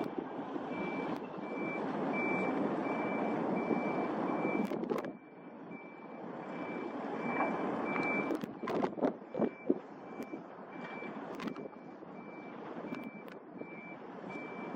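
A vehicle's reversing alarm beeps steadily, about three beeps every two seconds, over a rushing noise. There are a few sharp bumps a little past the middle.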